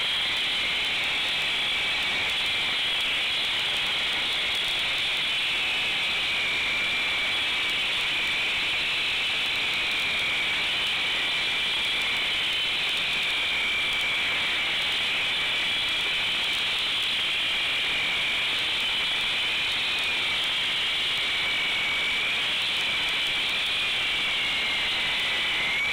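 Concrete saw cutting through a concrete slab: a steady, high-pitched whine whose pitch wavers slightly.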